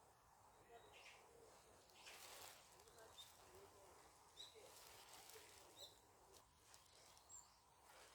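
Faint birds chirping: a few short, high chirps scattered through, over quiet background noise.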